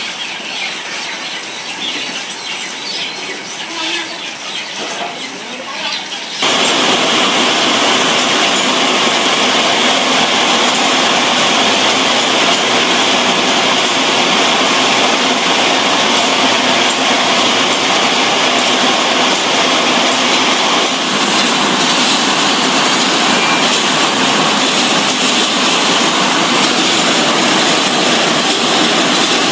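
Processing-plant machinery running: clattering for about six seconds, then an abrupt switch to a loud, steady rushing noise.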